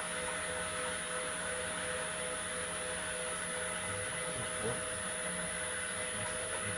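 Steady machinery hum of an open-channel flume's water pumps running, several held tones over an even noise, one of them pulsing.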